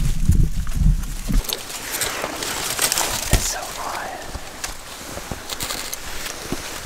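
A low rumble on the microphone that stops about a second and a half in. Then quieter rustling and crackling of dry milo stalks, with a few soft whispers.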